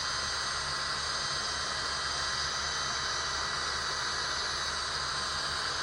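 Electric drill running at steady speed, spinning a typewriter paper feed roller against 1000-grit wet/dry sandpaper on a sanding block: a constant motor whine over an even sanding hiss.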